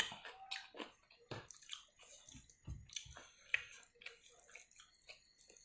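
Close-up wet chewing and lip-smacking of a person eating, with small irregular clicks and squelches.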